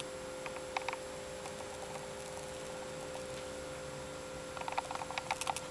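Steady electrical room hum with scattered light clicks and ticks, a few about a second in and a quick run of them near the end.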